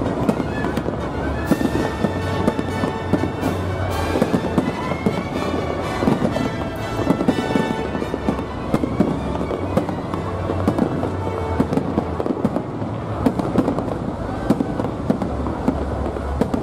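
Aerial firework shells bursting in quick, continuous succession: many bangs and crackles overlapping.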